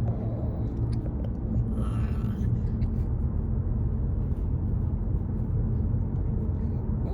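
Steady low road and engine rumble of a car heard from inside the cabin while driving.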